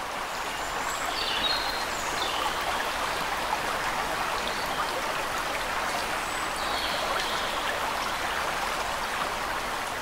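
Flowing water of a river or stream, a steady rushing, with a few faint high chirps above it.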